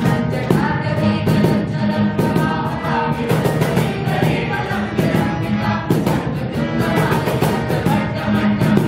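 A group of young voices singing together, accompanied by a harmonium and a steadily strummed acoustic guitar.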